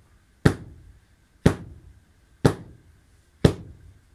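Four sharp, heavy blows in an even beat of one a second, each a hard thud with a short ringing decay.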